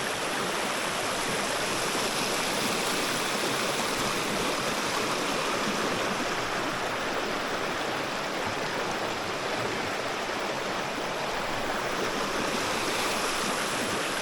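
A creek running over rocks: a steady rush and babble of flowing water.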